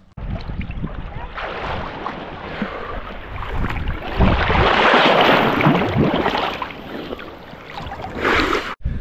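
Surf washing onto a beach, building to a loud rush about halfway through and then easing, with wind buffeting the microphone.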